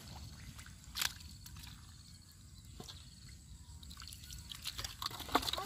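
Small drips, splashes and squelches of water and mud in a shallow muddy puddle, a few separate ones with the loudest about a second in, over a faint low rumble.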